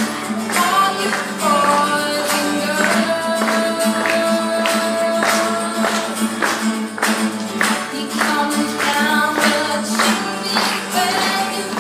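A boy singing to his own steady acoustic guitar strumming, holding one long note for several seconds near the start.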